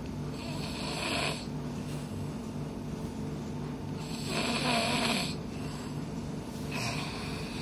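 A person snoring with a pig-like snore: three noisy breaths about three seconds apart, over a low rattle that goes on between them.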